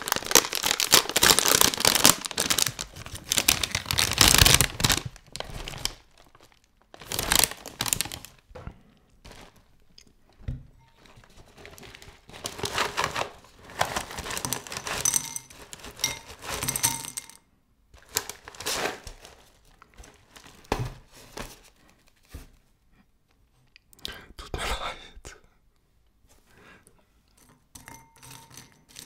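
Cereal packaging being torn open and crinkled. The rustling is dense for the first few seconds, then comes in separate bursts with short pauses between them.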